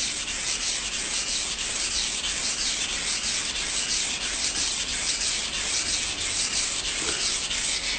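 Kitchen knife blade stroked rapidly back and forth over a wet whetstone in an even rhythm, a steady scraping hiss of steel on stone and slurry. This is the sharpening stroke that raises a burr along the edge.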